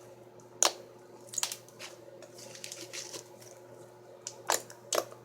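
Fluffy shaving-cream slime being squeezed and kneaded by hand, giving several sharp pops as trapped air bursts, with soft squishing between them.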